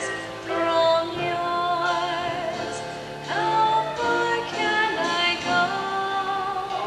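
A teenage girl singing a Broadway song solo into a microphone, holding long notes over steady accompaniment.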